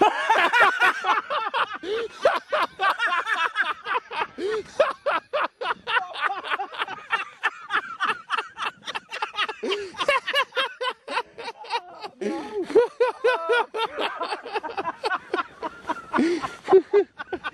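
A man's startled yell at the start, then a long stretch of laughter in quick, repeated bursts.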